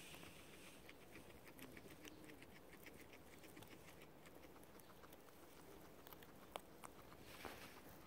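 Guinea pigs chewing clover: faint, quick crunchy clicks of munching, about five a second, with a few sharper clicks and a brief louder rustle near the end.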